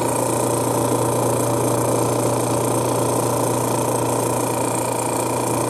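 Robinair RG3 refrigerant recovery machine's compressor humming steadily as it pumps R134a refrigerant out of a car's A/C system into a recovery tank. A constant low drone with a fainter steady higher tone, no change in speed.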